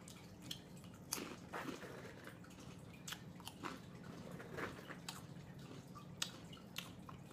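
A person chewing crunchy hot Cheetos and Takis with an open mouth, making irregular crunches and lip smacking.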